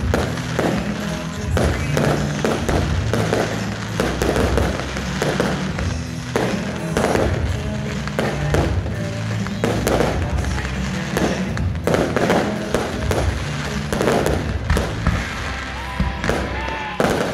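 Fireworks going off in a rapid string of bangs and crackles during a display finale, over loud music with a steady bass.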